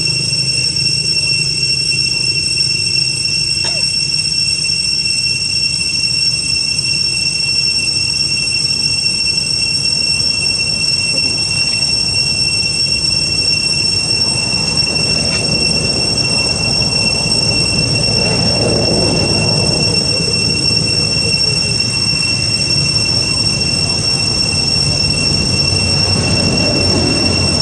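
A steady high-pitched whine throughout, with a plastic bag rustling and crinkling as it is tugged and handled, mostly in the second half.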